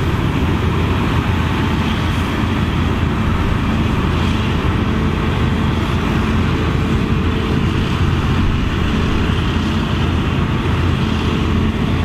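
Claas Lexion 770 Terra-Trac combine harvester at work harvesting: a steady, even drone of its engine and machinery.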